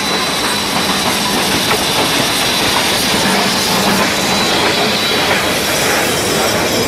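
NZR KA-class 4-8-4 steam locomotive KA 945 running past close by, followed by its passenger carriages rolling past on the rails.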